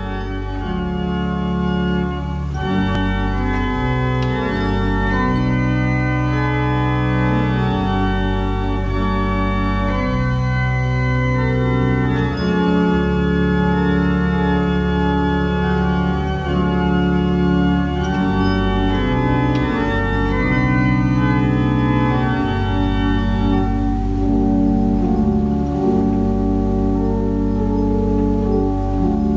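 Organ playing slow, held chords over a bass line that moves every second or two; the higher notes drop away about four-fifths of the way through, leaving lower chords.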